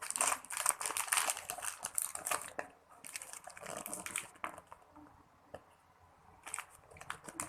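Thin plastic wrapping crinkling as a small Kinder Joy toy is unwrapped by hand, in crackly bursts that are densest in the first few seconds, pause about five seconds in, and start again near the end.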